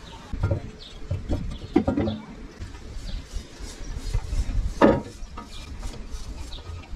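Hands working a rubber gasket into the groove of an aluminium oil pan on a wooden sawhorse: rubbing and scraping with light irregular knocks, one louder knock about five seconds in. Birds chirp faintly.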